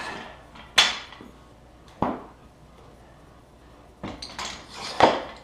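Barbell weight plates being handled on the bar's sleeve, clanking in four or five sharp metal knocks a second or more apart, each ringing briefly.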